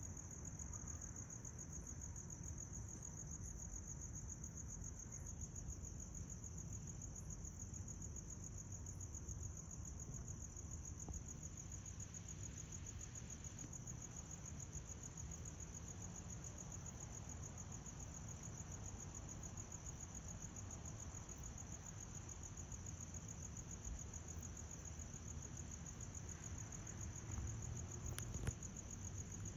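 Crickets trilling steadily in a high, continuous, rapidly pulsed chirr over a low rumble. There is one sharp click near the end.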